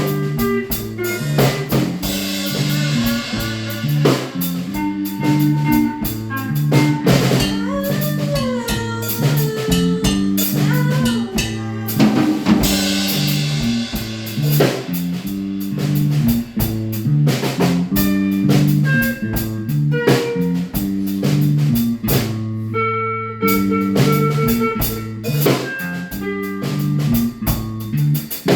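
Instrumental band music: a drum kit keeps a steady beat over a repeating bass line, while a guitar plays a lead with bent notes.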